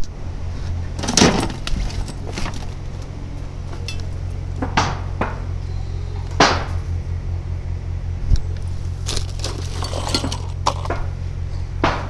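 Irregular clinks and knocks of hard objects, like glass or metal being bumped, over a steady low hum. The loudest knocks come about a second in and just after six seconds, with a cluster of them near the end.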